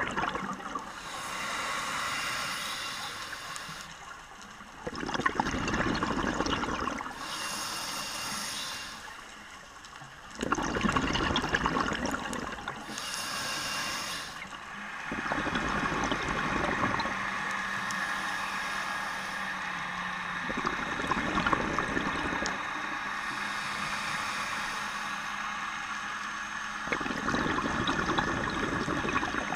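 Scuba diver breathing through a regulator underwater, heard from the diver's camera: a cycle about every five seconds of a hissing inhale followed by a louder rush of exhaled bubbles. A steady low hum joins about halfway through.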